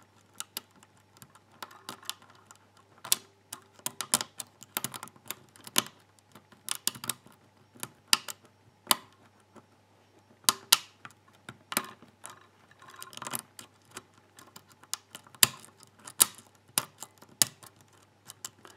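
Irregular sharp metallic clicks of a hook pick tapping and lifting the spool security pins of a Schlage Everest pin tumbler cylinder held under tension. The core is sitting in a false set.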